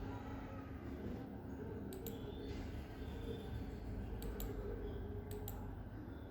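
Computer mouse clicking: three quick pairs of clicks, over a low steady hum.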